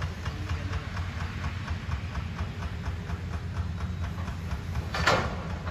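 Hitachi excavators' diesel engines running, a steady low rumble with a fine regular clatter through it. About five seconds in comes one short, loud burst of hiss or scrape.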